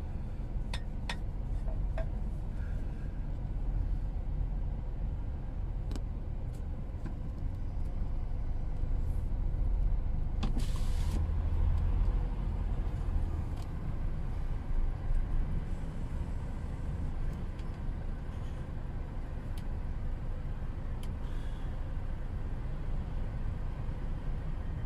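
Articulated lorry's diesel engine rumbling low as the truck pulls slowly past, swelling as the cab comes closest, with a short hiss about ten seconds in and a few light clicks.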